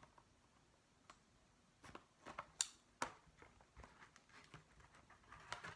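Faint handling of a small cardboard product box being picked at and cut open: scattered light clicks and scratches, with a sharp click about two and a half seconds in and a few more near the end.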